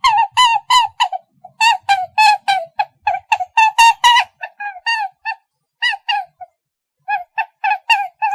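A rabbit squeaking: a quick run of short, high squeaks, each rising and falling, several a second, with brief pauses between runs.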